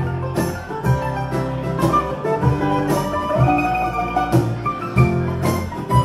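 Live acoustic string band playing an instrumental passage without vocals: picked guitar and other plucked strings over a steady bass line, with a regular beat.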